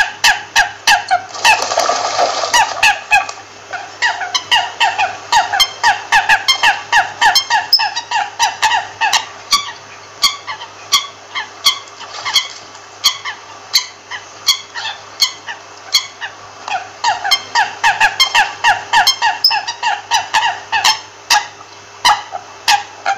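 American coots calling: a rapid run of short, repeated calls, about five a second, thinning out for a few seconds midway. A brief rush of noise comes about two seconds in.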